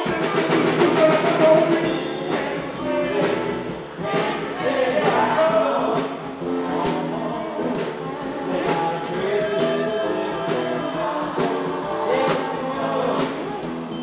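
Live band playing a song with singing over electric guitar, acoustic guitar and a drum kit keeping a steady beat.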